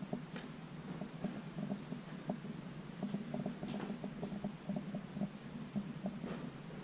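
Footsteps on old wooden attic floorboards, with many small irregular creaks and ticks and a couple of brief scrapes.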